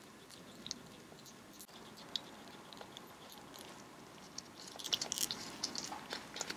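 Gloved fingers pressing soft yakgwa dough into a hand mold and working it back out: faint scattered clicks and soft sticky rustles, with a denser run of small clicks and rustling about five seconds in as the dough comes away from the mold.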